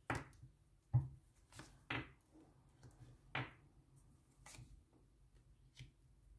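Tarot cards being handled on a table: a handful of soft, short slaps and rustles about a second apart, the sharpest about a second in.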